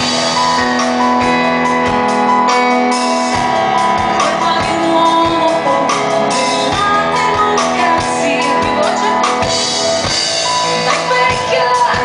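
Live band playing a pop song, with a woman singing over a steady kick-drum beat.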